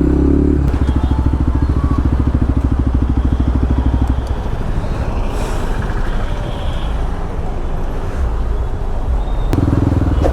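Modified Bajaj Pulsar RS200's single-cylinder engine running loudly through an aftermarket Akrapovic full-system exhaust, a fast, even firing pulse. The engine note drops back about four seconds in and grows louder again near the end.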